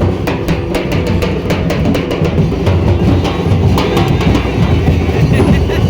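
Loud music from a DJ sound system: heavy bass and drums, with a quick run of sharp snare-like hits through the first three or four seconds.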